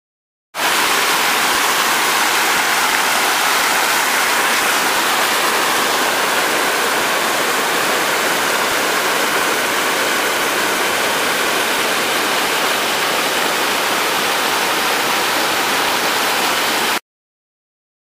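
Steady rush of water from the flooded Pecos River running high in the rain. It starts suddenly about half a second in and cuts off abruptly about a second before the end.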